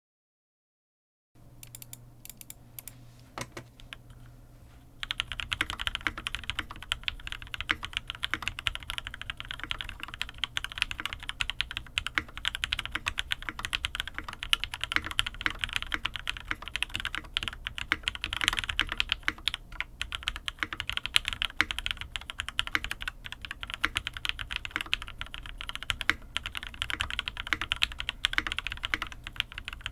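Mechanical keyboard typing on a UTD 360c top-mount board with Krytox-lubed full-nylon switches: a few scattered keypresses at first, then steady fast typing from about five seconds in.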